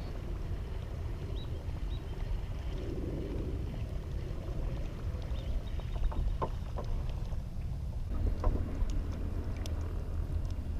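Wind buffeting the microphone on a kayak: a steady low rumble with a hiss above it, and a few light knocks past the middle.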